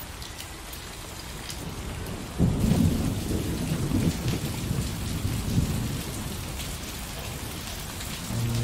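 Steady rain falling, with a long low rumble of thunder that starts suddenly about two and a half seconds in and dies away over the next few seconds. An acoustic guitar begins right at the end.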